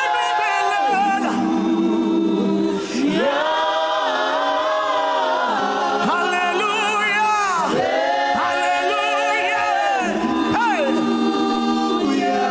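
Voices singing a gospel worship song in long held notes with vibrato, the phrases changing every second or two.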